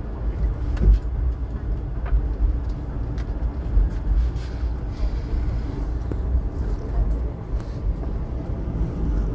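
Passenger train running, a steady low rumble with a few short knocks.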